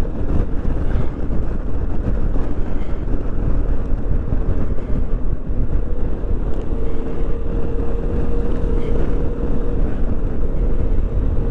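Yamaha XMAX 300 scooter on the move: steady wind rush on the microphone over the running of its single-cylinder engine, with a faint steady tone for a few seconds past the middle.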